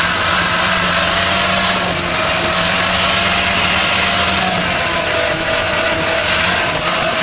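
A power tool running steadily under load, with a wavering whine over a low hum.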